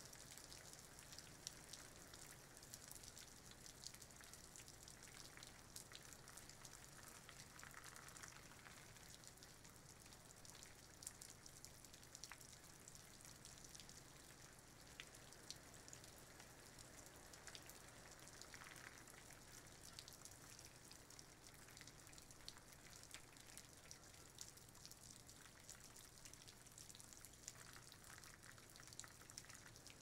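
Faint light rain falling on garden leaves: a soft steady hiss of rain with many small drop ticks scattered through it.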